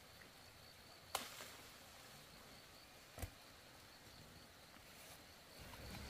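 Near silence with a faint steady high insect whine, broken by two short sharp snaps about two seconds apart, the second with a dull thud in it.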